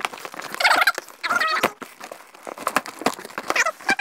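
A woman's short, high-pitched nervous vocal sounds, three brief bursts, among the crackling and rustling of packaging as she opens a box.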